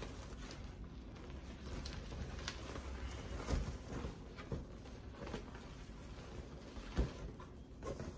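Inflated latex balloons being handled and pushed against one another, giving scattered soft rubbing and knocking sounds, a few sharper ones about three and a half, four and a half and seven seconds in.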